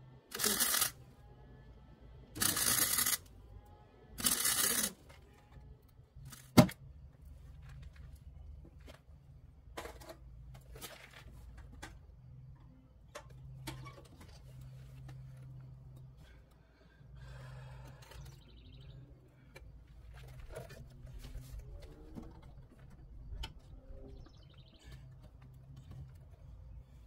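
Welder tack-welding a steel cab corner repair panel: three short crackling bursts, each under a second, in the first five seconds. Then one sharp knock, followed by scattered quieter taps and handling as the panel edge is worked.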